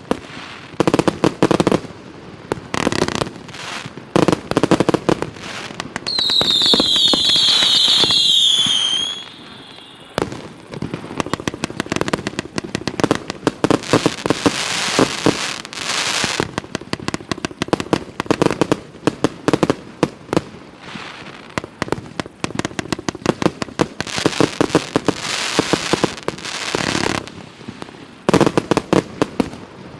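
A 258-shot consumer fireworks cake with 0.8- and 1-inch tubes firing in rapid succession: a dense run of shots and bursting shells with crackling. About six seconds in, a cluster of high whistles, dropping slightly in pitch, sounds for about three seconds.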